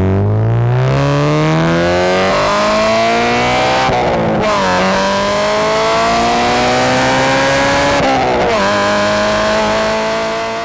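A car engine accelerating hard through the gears, its pitch climbing steadily, dipping at two gear changes about 4 and 8 seconds in, then fading out near the end.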